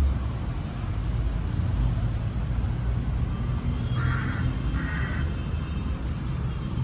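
Steady low rumble of distant road traffic, with two short rasping sounds about four and five seconds in.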